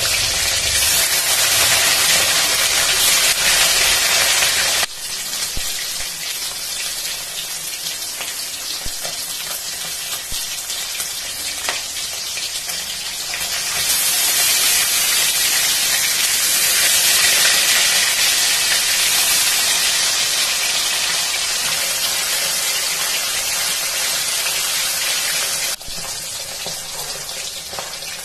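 Rohu fish pieces coated in turmeric sizzling as they deep-fry in hot mustard oil in a kadhai, a steady hissing crackle. The sizzle drops abruptly about five seconds in, swells again about halfway through, and drops once more near the end.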